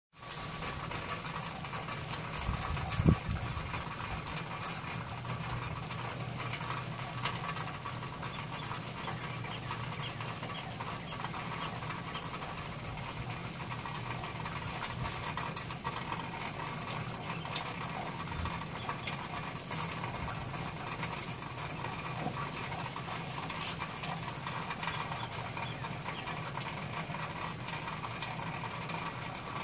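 Outdoor ambience: a steady low hum with a few faint bird chirps, and a single sharp knock about three seconds in.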